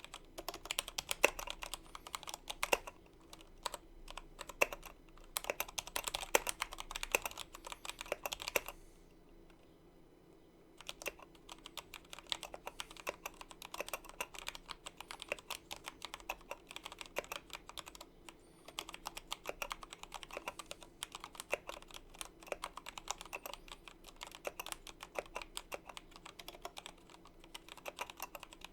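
Typing on a Royal Kludge RK61 60% mechanical keyboard with RK Red linear switches: a fast, irregular run of key clacks, broken by a pause of about two seconds a third of the way in.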